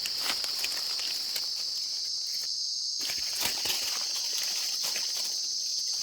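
Steady high-pitched drone of insects, crickets or cicadas, with faint scattered ticks and rustles.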